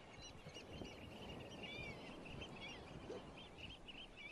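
Faint chorus of small birds chirping and twittering in quick, short notes, over a low, steady background rumble of open-field ambience.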